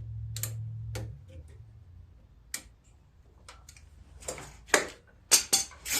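Scattered sharp clicks and light metallic taps of small parts and tools being handled during reassembly of a mower carburetor and fuel line. They come irregularly, with several louder ones near the end, over a low hum that stops about a second in.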